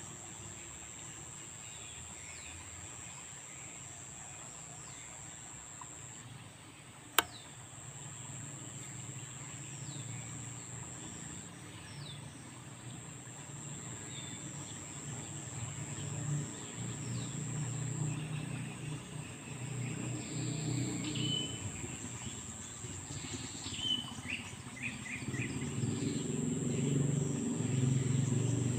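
Outdoor riverbank ambience: birds chirping on and off over a steady high-pitched whine and a low background hiss. A single sharp click sounds about seven seconds in, and a low rumble builds over the last ten seconds.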